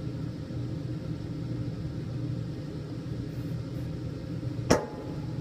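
Steady low hum of the workshop, with one sharp click followed by a brief ring about a second before the end.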